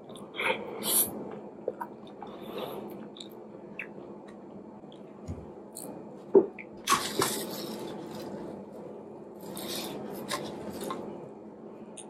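Close-up wet chewing and squishing of a mouthful of fufu with okra soup eaten by hand, in short irregular bursts. About seven seconds in, a sharp click and a brief crinkle come from the plastic wrap around the fufu as more is pinched off.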